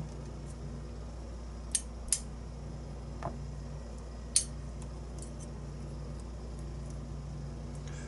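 A few short, sharp metallic clicks as steel tweezers handle small lock pins from a disassembled pin-tumbler cylinder, over a steady low hum.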